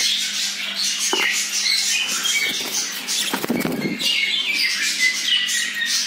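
A flock of budgerigars chattering and chirping continuously, with a brief rush of wing flapping about three and a half seconds in.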